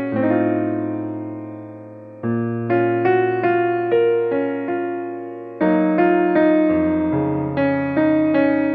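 Background piano music: slow, gentle chords and melody notes, each struck and left to fade.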